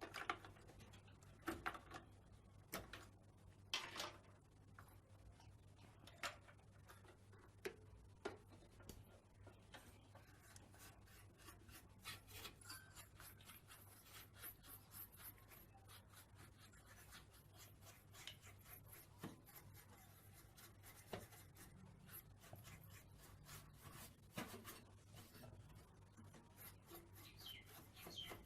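Faint brushing and rubbing with scattered small clicks and taps: a paint brush being worked over a computer's motherboard and parts to clear dust. The sharpest taps come in the first several seconds.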